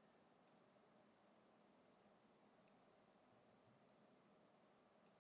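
Near silence: quiet room tone with about half a dozen faint, scattered clicks from a computer keyboard and mouse.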